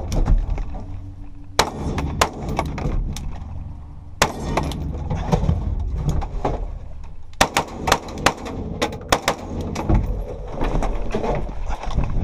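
Semi-automatic AR-style rifle fired from inside a metal van: sharp shots at irregular spacing, with a quicker string of them past the middle. Between the shots come knocks and clatter of the shooter moving over the van's floor, over a steady low rumble.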